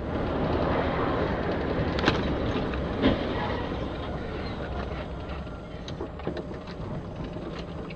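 Steady road noise inside a vehicle driving on a wet highway: engine and tyre rumble with tyre hiss from the wet road, easing off gradually. A sharp knock about two seconds in and another about three seconds in, then scattered light ticks near the end.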